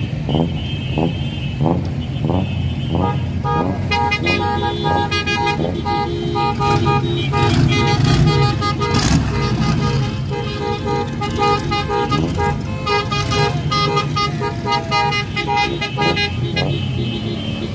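Engines of classic cars running in a slow-moving line, with car horns honking over and over from several vehicles.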